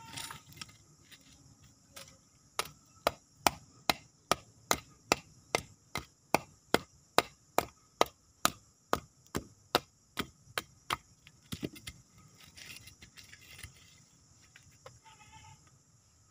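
A small bladed hand tool chopping at roots and soil packed on a lump of porous rock, in a steady run of sharp strikes about two and a half a second. The strikes begin a couple of seconds in and stop about eleven seconds in, with a few looser knocks just after.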